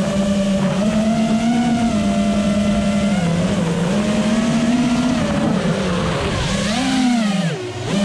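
Emax Buzz FPV quadcopter's motors and propellers whining, the pitch rising and falling with the throttle. Near the end the pitch dips sharply and the sound drops for a moment as the throttle is cut, then climbs back.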